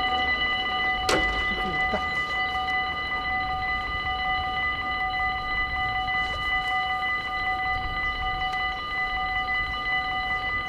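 Dutch level-crossing warning bell ringing continuously at a steady pitch. About a second in there is a single sharp knock as the lowering barrier arm comes to rest.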